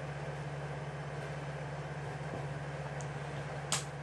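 Steady low hum with a background hiss, broken just before the end by one short, sharp click as a Mi Band 3 wristband strap is fastened on the wrist.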